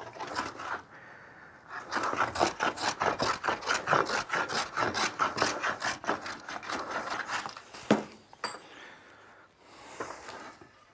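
A hand plane (a No. 4 bench plane with a cambered 'hogging' blade) taking a quick run of short rasping strokes along a wooden board, cutting across the ridged tracks left by a scrub plane. A sharp knock comes near the end, and the cutting stops.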